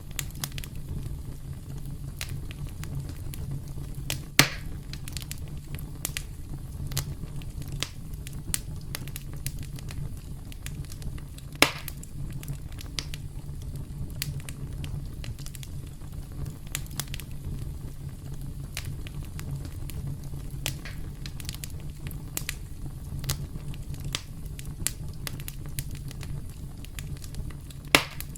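Campfire crackling: burning wood gives off frequent sharp snaps and pops over a steady low rumble. A few louder pops come about four seconds in, near twelve seconds, and near the end.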